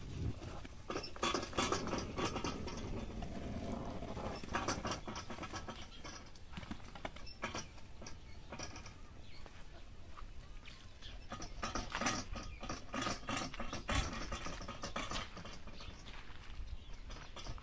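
Hands patting and pressing flatbread dough flat on a hot iron griddle over a wood fire: irregular soft pats and taps, bunching into quick runs at times.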